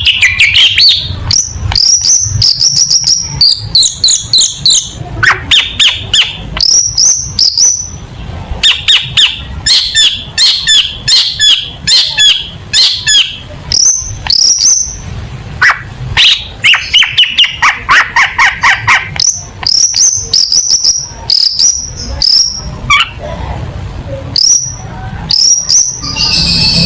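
Long-tailed shrike (cendet) singing a loud, varied song: quick runs of sharp, high whistled notes broken by buzzy trilling phrases.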